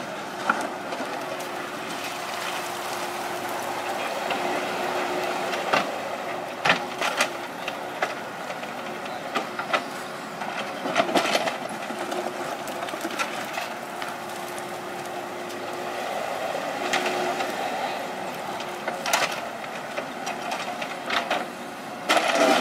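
Kubota KX91-3 mini excavator working: its diesel engine runs steadily, with a faint whine that comes and goes, and repeated sharp knocks and clanks from the working equipment.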